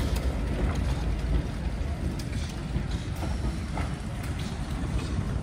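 Diesel train running along the line: a steady low rumble with a few short knocks from the running gear.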